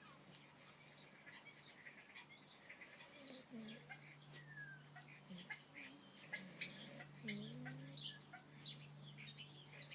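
A sleeping puppy snoring faintly, with short high squeaks and a few small whines.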